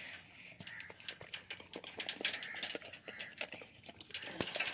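Dog eating from a metal pan, a quick, irregular run of small smacking and clicking sounds from its mouth and the pan.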